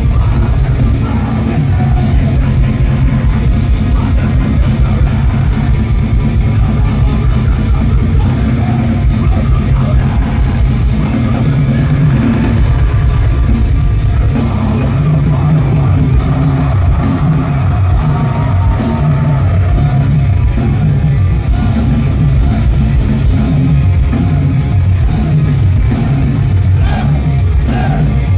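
A deathcore band playing live, heard from within the crowd: distorted electric guitars, bass and drums, with a vocalist on the microphone, dense and heavy in the low end.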